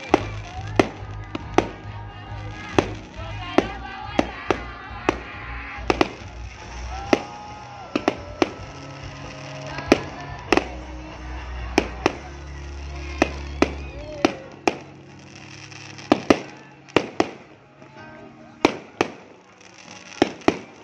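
Aerial fireworks shells bursting in a steady barrage: sharp bangs roughly every half second to second, sometimes two or three in quick succession.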